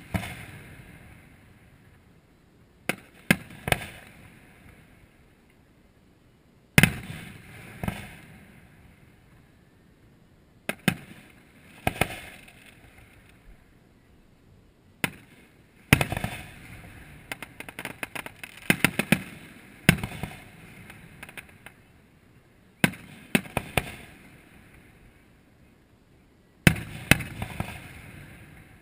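Aerial fireworks going off: sharp bangs every few seconds, each trailing off in an echoing rumble, with a quick run of crackling pops about halfway through.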